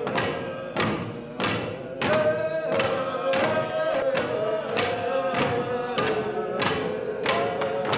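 Wooden staffs struck on a stage floor in a steady beat, about three strikes every two seconds, under a held, wavering droning note.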